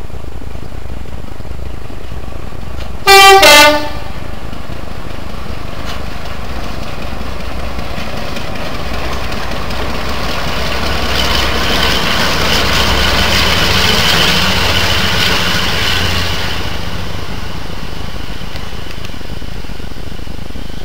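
Class 42 'Warship' diesel-hydraulic locomotive D832 sounding its two-tone horn about three seconds in: a short, very loud blast, high note then low. Later the locomotive runs past close by, its engine noise swelling to a peak and then fading.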